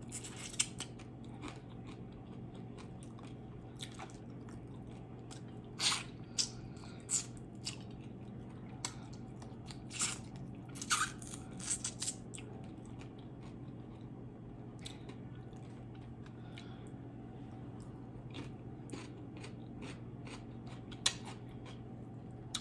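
Close-miked eating: chewing and biting into crisp, deep-fried tilapia, with scattered short sharp mouth clicks and smacks over a steady faint hum.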